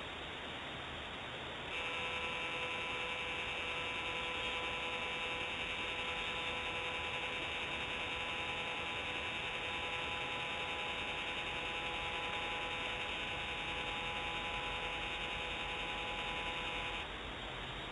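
Remote nest camera's pan-tilt motor humming: a steady multi-tone whine that starts about two seconds in and stops shortly before the end, over a constant background hiss.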